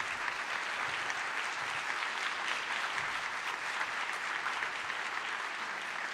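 An audience applauding steadily: a dense, even patter of many hands clapping at the end of a talk.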